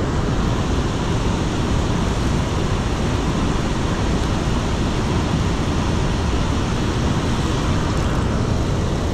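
Steady rush of river water pouring over a dam spillway and running through the shallows, an even noise with no breaks.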